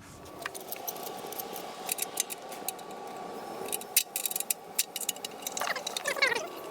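Small metal hardware being handled: clicks and scrapes as a nut is threaded back onto a stud to fasten the kill-switch wire, with a few short squeaks near the end.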